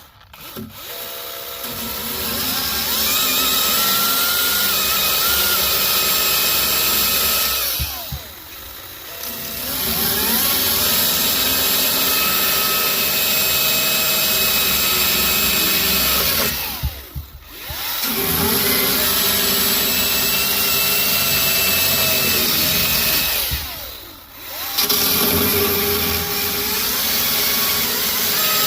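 DeWalt 60-volt top-handle battery chainsaw with an Oregon Speed Cut Nano chain, running and cutting rounds off a log, its motor note shifting under load. It winds down and spins back up three times between cuts.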